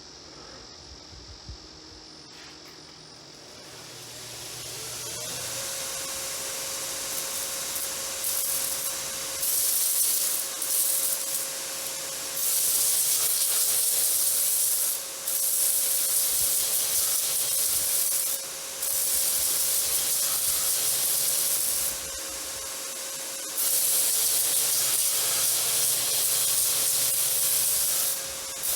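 Shop-built surface grinder starting up, its whine rising over the first few seconds to a steady running hum. Then the grinding wheel hisses against steel coin blanks in long passes of a few seconds each, broken by short pauses.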